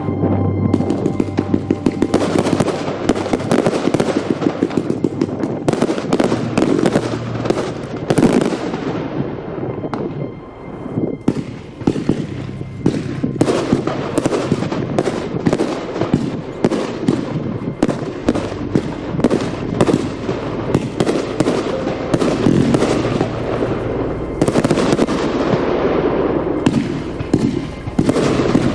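New Year's Eve fireworks going off in a rapid, continuous barrage of bangs and crackling, easing briefly about ten seconds in before picking up again.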